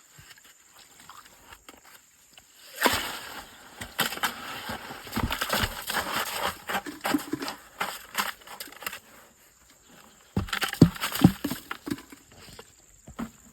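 Gritty scraping and crunching of sand and gravel being worked, in two stretches: a long one starting about three seconds in, and a shorter one a little after ten seconds.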